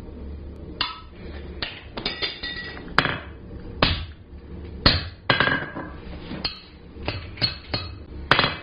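Hammer striking a hand punch driven into red-hot mild steel on an anvil, punching screw holes: about fifteen sharp blows at an uneven pace, some with a brief metallic ring.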